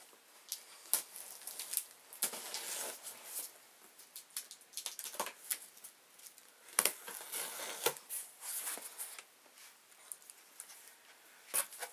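A taped cardboard box being cut and opened: packing tape slit and torn and the cardboard flaps pulled back, heard as irregular sharp clicks, scrapes and short scratchy tearing sounds.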